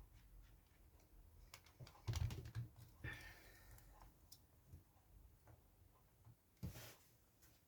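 Faint scattered clicks and taps of small tools and iPhone parts being handled during a repair, with a cluster of knocks about two seconds in and a short rustle near the end.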